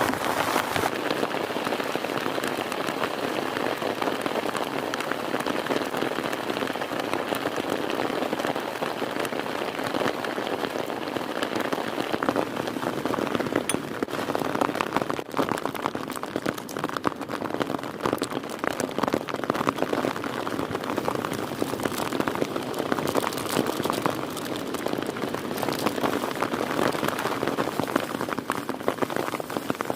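Heavy rain falling steadily, a dense patter of many individual drop hits.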